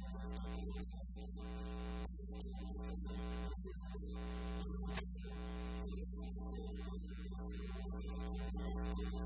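Steady electrical mains hum: a low buzz with a stack of evenly spaced overtones, holding level.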